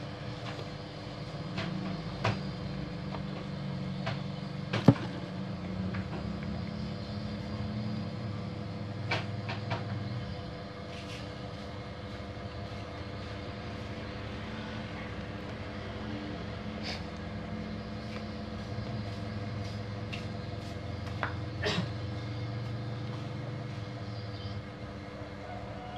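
Scattered sharp clicks and clacks of a copier's metal-and-plastic assembly and a screwdriver being handled during disassembly, the loudest about five seconds in, over a steady low rumble and a faint steady hum.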